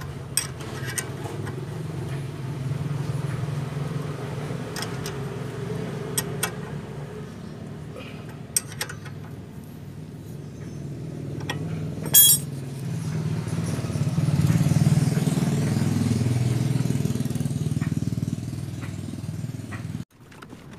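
Sharp metallic clicks and taps of a wrench working the brake caliper bolts, with one loud click about twelve seconds in. Under them runs a steady low rumble of a vehicle engine that swells for a few seconds in the second half.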